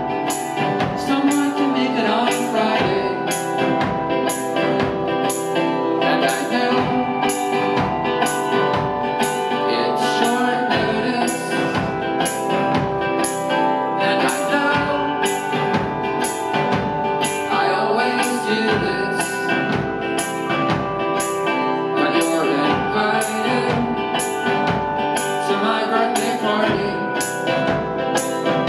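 Live indie rock band playing: drum kit keeping a steady beat with regular crisp high hits about once a second, under strummed acoustic guitar and sustained keyboard and guitar chords.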